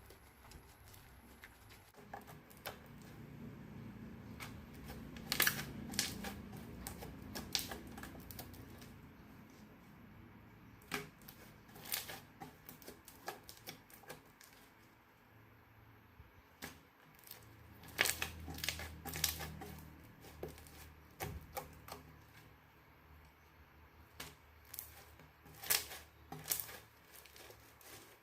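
Slime being squished and worked by hand: scattered sharp pops and crackles, with soft low handling noise swelling in between.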